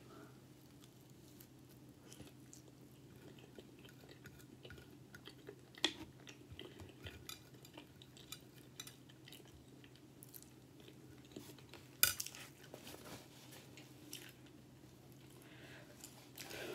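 Quiet chewing of a forkful of bacon ranch cheese fries, with a fork clicking and scraping on a plate. Two sharper clinks come about six and twelve seconds in, over a faint steady low hum.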